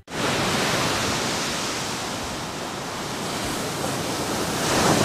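Steady rushing noise that starts abruptly and swells near the end: the sound effect of an animated production-logo sting.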